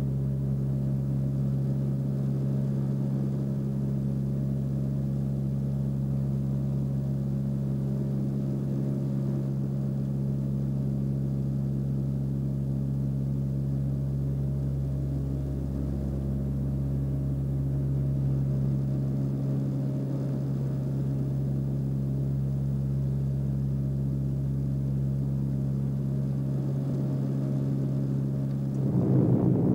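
A steady low drone of a few fixed tones over a low rumble, unchanging throughout. Shortly before the end more tones join in.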